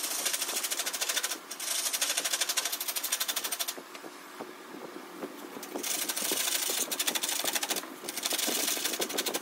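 A turning tool cutting a wooden baton blank spinning on a spring pole lathe: a rapid rattling hiss of shavings coming off in bursts of about two seconds, with a quieter stretch near the middle.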